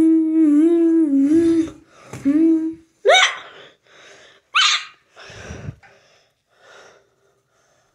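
A child's voice making play sound effects rather than words: a long wavering held note for about two seconds, a shorter one, then a few short sharply rising gasp-like cries with breathy noises between, dying away near the end.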